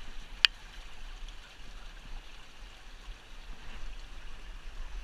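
Small creek running steadily over rocks, with one sharp knock about half a second in.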